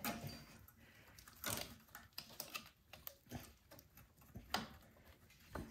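Faint scattered clicks and a few sharper taps of hands handling a snowblower engine's ignition coil while its air gap is being set with a business card slid in as a spacer, the mounting bolts still loose.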